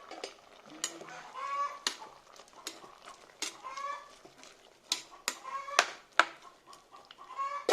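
A bird making a run of short pitched calls, about one a second, with sharp clicks between them and a brief loud noise near the end.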